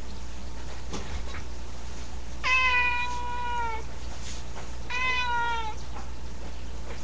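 Domestic cat meowing twice: a long, drawn-out meow about two and a half seconds in, then a shorter meow that falls in pitch about five seconds in.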